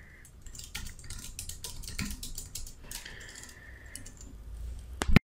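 Computer keyboard keystrokes clicking in quick, uneven succession as numbers are typed in, with a sharper click near the end just before the sound cuts off suddenly.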